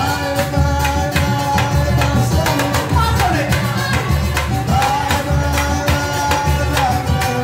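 Live pagode (samba) band playing: cavaquinho strumming over a pandeiro and hand drums keeping a steady beat.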